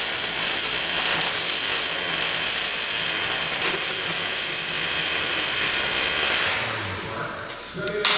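Angle grinder working on steel, running steadily for about six and a half seconds and then winding down.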